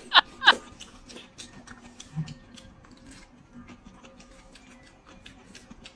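Eating sounds at a table: a brief noodle slurp at the start, then quiet chewing with scattered light clicks and taps of chopsticks.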